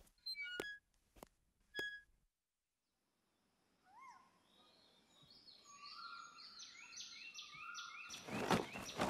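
A few light metallic clinks at first, then after a brief dead gap an outdoor ambience fades in with birds chirping, repeated falling chirps growing louder. Near the end loud knocking thumps begin.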